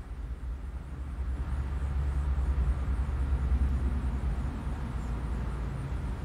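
Low, steady background rumble that grows louder about a second and a half in and eases slightly near the end.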